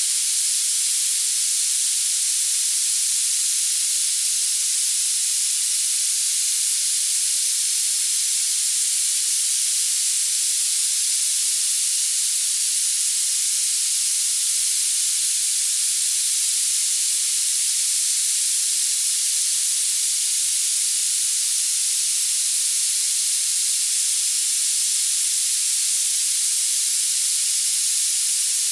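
Tinnitus masking noise: a steady, unchanging high-pitched hiss with no low tones at all.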